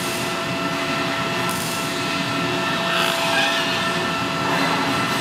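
Mini CNC router's spindle engraving an aluminium plate: a steady whine of several held tones over the rough hiss of the end mill cutting metal, swelling slightly now and then as the cut goes on.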